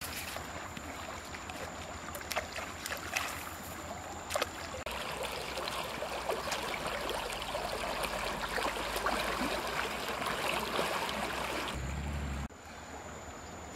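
Shallow river water flowing and rippling in a steady rush, with a few sharp clicks in the first few seconds.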